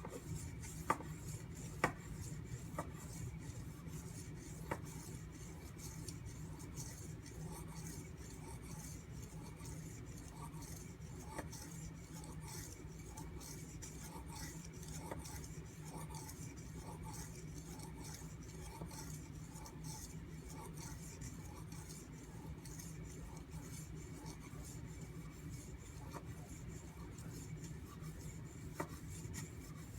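Steel knife blade stroked back and forth on a whetstone while a convex bevel is worked in: a soft, steady scraping with a few light clicks.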